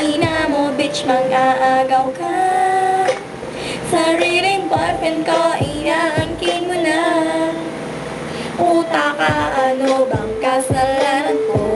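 A young woman singing a Tagalog song over backing music with a steady beat, holding some notes with a waver.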